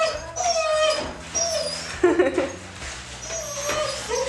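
Dogs whining: high, wavering whimpers that come and go, with a short lower cry about two seconds in.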